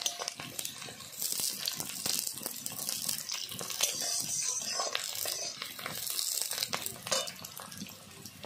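Sliced onions and chillies sizzling as they fry in hot oil in a metal kadai, with a metal spatula scraping and clicking against the pan as they are stirred.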